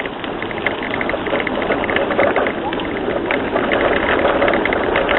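Bicycle rolling over a rough off-road trail: a steady rushing noise with many light clicks and rattles, growing slightly louder.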